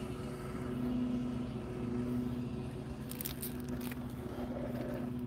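Steady engine and road hum inside a car's cabin while driving, with a few faint clicks about three seconds in.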